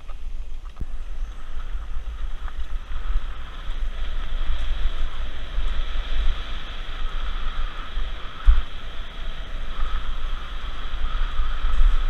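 Wind buffeting the microphone of a mountain bike running fast down a dirt trail: a steady rush with low rumbling gusts. There are short knocks from the bike about a second in and again about two-thirds of the way through.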